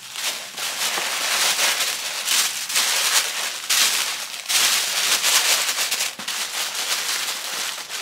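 Sheets of tissue paper crinkling and rustling without pause as they are gathered and bunched around a cup to wrap it.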